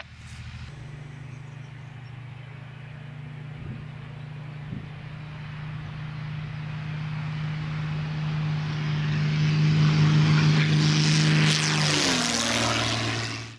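Single-engine propeller aerobatic plane flying a low pass: a steady engine-and-propeller drone grows louder as it approaches. Its pitch drops about twelve seconds in as the plane goes by, and the sound cuts off suddenly just before the end.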